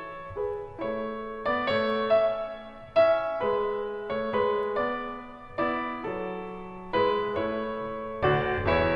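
Background piano music: slow chords and notes, each struck and left to fade, growing fuller near the end.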